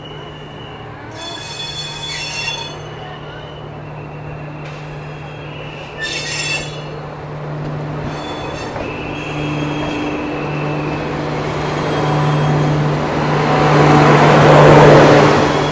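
A rake of passenger coaches being shunted slowly past at close range, its wheels squealing on the rails in several bursts. The rolling rumble of the coaches grows louder near the end as they pass right by.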